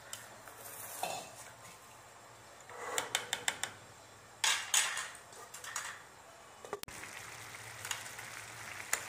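Kitchen utensil stirring and knocking against a steel cooking pot of boiling pulao: clusters of clinks and scrapes about three and five seconds in, and one sharp click near seven seconds. A faint bubbling of the boiling rice and liquid carries on between them.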